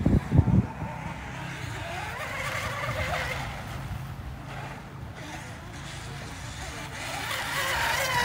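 Homemade RC rigger boat's 2845 brushless motor and propeller whining at high speed on a 4S battery. The whine swells and bends in pitch as the boat passes about three seconds in, and is louder again near the end as it runs close by. A few low thumps at the start.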